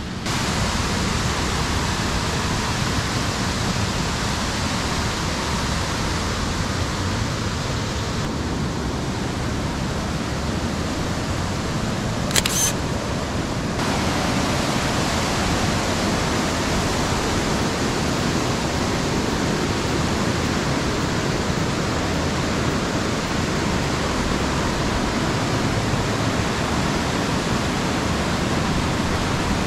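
Steady rushing of Faux Falls, a pump-fed artificial waterfall, cascading down bare sandstone, heard up close. About twelve seconds in there is one brief sharp click.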